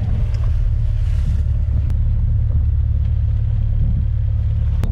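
Fishing boat's engine running steadily, a loud low rumble, with a couple of faint clicks over it.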